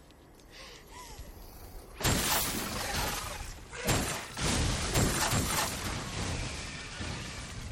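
Ice shattering: the Night King's frozen body bursts apart with a sudden loud crash about two seconds in, followed by a run of further shattering crashes that then die away.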